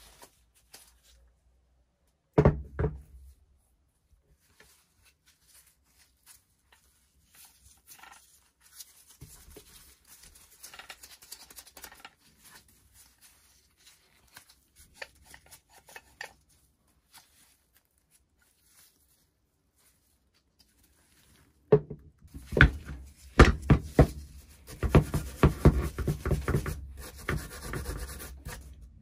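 An old rusty steel pulley block being handled on a wooden bench: a single heavy thunk about two seconds in, light rubbing and shifting, then from about three quarters of the way through a quick run of sharp metallic clicks and knocks as pliers work at the hook end.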